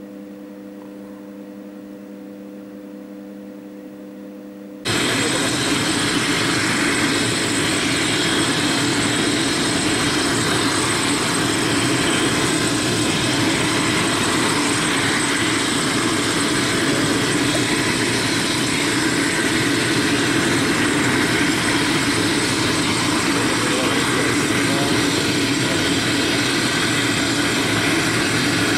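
Eurocopter EC135 helicopter's twin turbines and rotor running steadily, loud and even with a faint high whine, cutting in suddenly about five seconds in; before that only a quieter steady hum with a few low tones.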